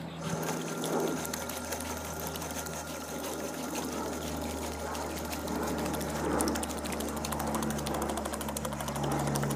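Model paddlewheel towboat's electric motor and pulley drive running, with the stern paddlewheel turning in the water: a steady mechanical whirr with a fast, even chatter.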